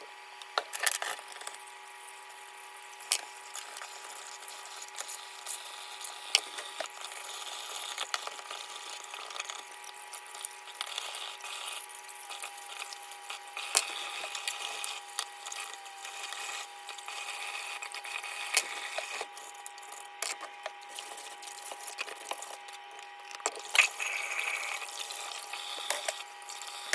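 Handling and scrubbing of plastic dishwasher filter and trap parts being cleaned: many sharp clicks and knocks over a steady hiss.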